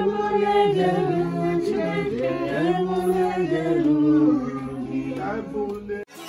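A group of voices singing a worship song together without instruments, several voices holding and sliding between notes; it cuts off abruptly just before the end.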